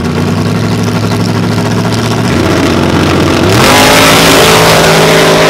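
Small-tire drag racing cars' engines held at steady revs on the starting line, then launching at full throttle about three and a half seconds in: the pitch climbs steeply and the sound gets louder and stays high.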